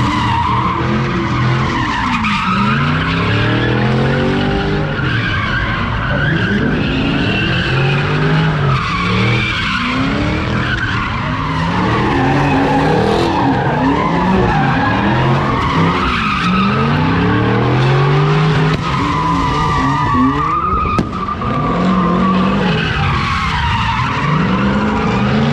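A car doing donuts: its tires screech without a break while the engine revs up and down over and over.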